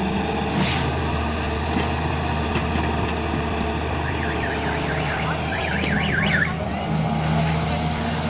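Diesel engine of a Volvo EW130 wheeled excavator running steadily under load as the hydraulics swing the arm and empty the bucket. About halfway through, a high warbling sound wavers up and down for a couple of seconds.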